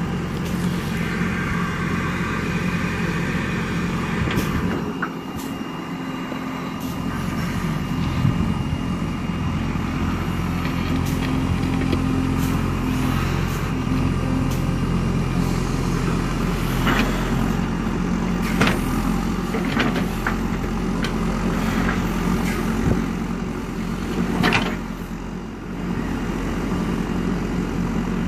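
JCB 3DX backhoe loader's diesel engine running steadily, its note dipping briefly twice. Several sharp knocks come in the second half.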